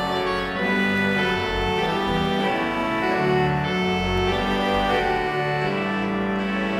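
Organ music: sustained chords held for about a second each before moving to the next, at a steady level.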